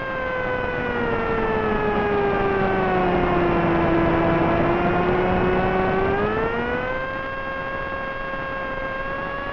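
Brushless motor (Multistar Elite 2204) spinning a 6x3 Gemfan prop on a Wing Wing Z-84 flying wing, whining steadily over a constant rush of wind. The whine's pitch sinks slowly over the first four seconds as the return-to-home autopilot eases the throttle back, then climbs back up about six seconds in as power is restored.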